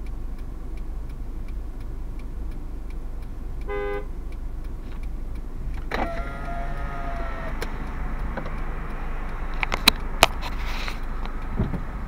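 A pickup truck's horn honking behind a car waiting at a red light: a short toot about four seconds in, then a longer honk lasting over a second about two seconds later, over the steady low hum of the idling car heard from inside the cabin. The honking urges the stopped driver to go through the red. Two sharp clicks come near the end.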